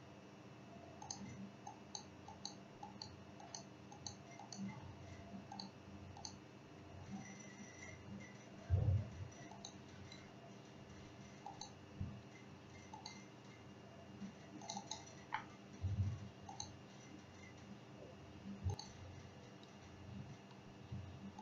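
Computer mouse clicking, faint and irregular, with a quick run of clicks in the first few seconds, over a steady faint hum. A soft low thump comes about nine seconds in and another near sixteen seconds.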